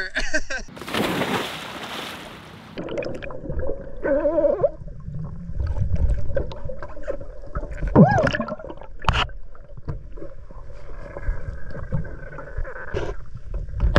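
A sudden rush of water noise, then muffled underwater gurgling and bubbling with a few knocks.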